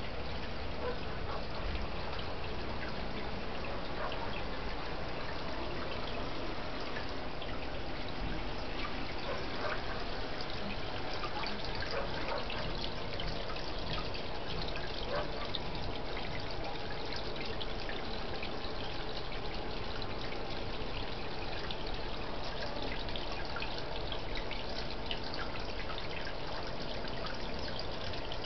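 Water trickling and dripping steadily into a garden fish pond, a constant splashing patter with many small drop sounds.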